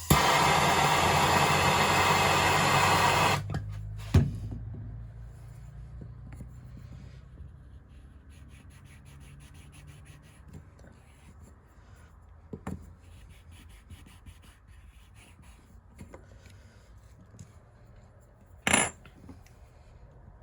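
Blowtorch running with a steady loud hiss for about three and a half seconds, heating a sharpened pipe punch, then cut off abruptly. After that, quiet tool handling with a few knocks, and a short sharp burst near the end.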